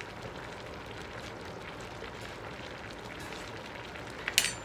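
Vegetable-and-fish broth simmering in a stainless steel saucepan on a glass-top electric stove, a steady bubbling hiss with small pops. Near the end comes one brief, sharp clink.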